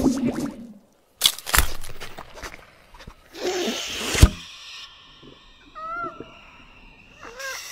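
Cartoon sound effects for an animated squirrel swimming underwater: a sudden cut to silence, two sharp hits, then a burst of rushing water-like noise ending in a sharp click. Later come short squeaky cries that bend in pitch, once near six seconds and again near the end.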